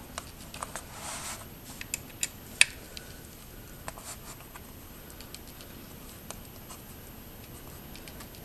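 Light metallic clicks and ticks of a hex bit socket turned by hand, running the sump cover bolts in loosely so the plate can settle before torquing. The clicks are scattered, with a short scrape, most of them in the first four seconds and the sharpest about two and a half seconds in.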